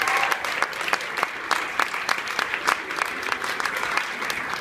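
Audience applauding: a dense, steady patter of many people's hand claps.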